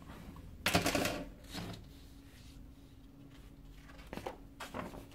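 Pages of a glossy magazine being opened and turned: a loud paper rustle about a second in, a smaller one just after, and two lighter page flicks near the end.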